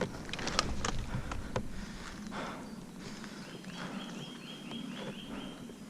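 Footsteps crunching and snapping twigs on a forest floor, with a rapid trill of short high notes, like a small bird's song, in the second half.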